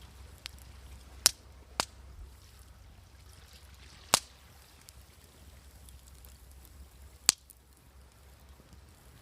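Wood fire crackling: a few loud, sharp pops of burning wood at irregular intervals over a faint, steady low rumble.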